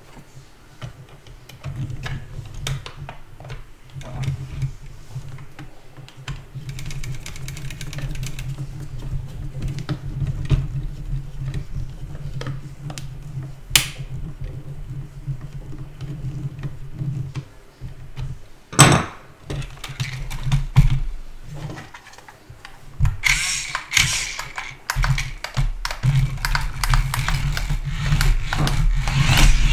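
Small metal construction-kit parts clicking and tapping as a toy truck is handled and fitted together, with one loud knock about 19 seconds in, all over a steady low hum. From about 23 seconds the remote-control truck's small electric drive motors and gears whir as it drives.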